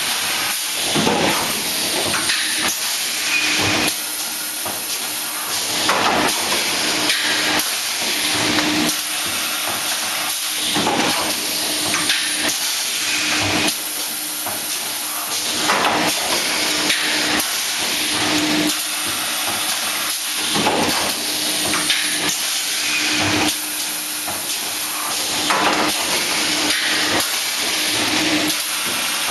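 PP bottle blow moulding machine running through its cycles: loud hissing of compressed air from its pneumatic cylinders and blowing, surging about every two to three seconds with knocks of the moulds and cylinders.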